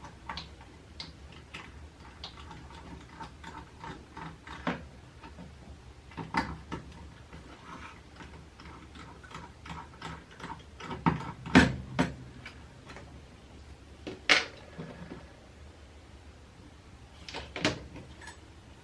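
Clicks, taps and knocks of small tools and plastic and metal parts being handled while a handheld VHF radio transceiver is taken apart. The louder knocks come about two-thirds of the way through and again near the end.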